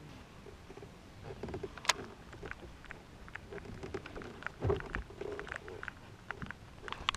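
Water lapping against a bass boat's hull, with scattered small ticks and knocks and one sharp click about two seconds in.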